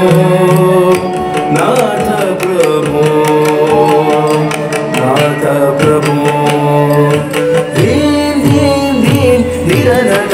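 Carnatic-style classical dance music: a sustained melodic line over steady hand-drum strokes, with several low drum notes sliding down in pitch about eight seconds in.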